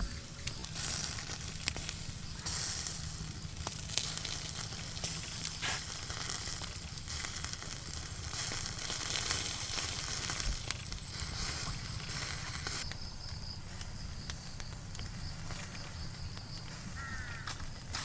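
Whole squid sizzling on a wire grill over a charcoal fire, with a few sharp crackles from the coals.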